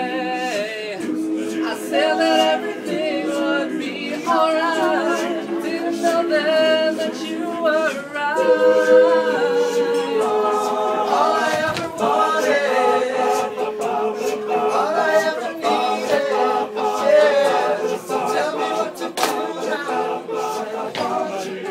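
All-male a cappella group singing a pop song in close harmony, with held chords under a moving lead melody.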